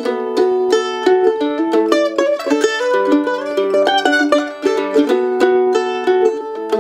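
Solo A-style mandolin picked with a flatpick, playing a quick melody of short, rapidly changing notes.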